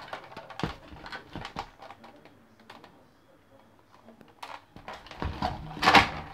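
Hard plastic parts of an opened Nerf blaster clicking and clacking as they are handled and pulled apart. The clicks are scattered, with a quieter stretch in the middle and louder clacks near the end.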